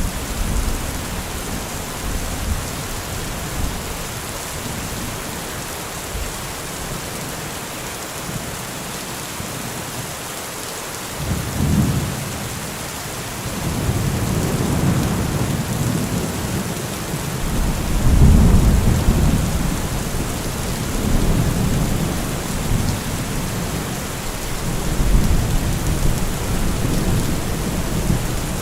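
Heavy rain falling in a steady, even hiss. From about halfway through, deep low rumbles swell and fade several times under it.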